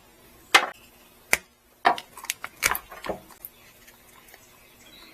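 Scattered light clicks and taps of small tools and parts being handled while wiring is prepared, seven or eight in the first three seconds, then quieter.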